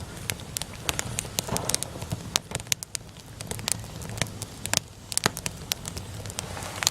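Wood fire crackling, with many irregular sharp pops and snaps over a low steady rumble of the burning.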